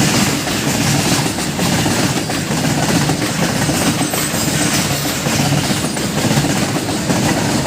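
Freight train's wagons rolling past at speed: a steady loud rumble of steel wheels on the rails with a clattering over the rail joints.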